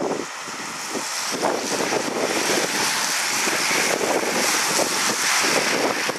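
A bunch of road-racing bicycles passing close by on a wet road: a hiss of tyres on wet tarmac that builds as the riders come past and eases near the end, with wind buffeting the microphone.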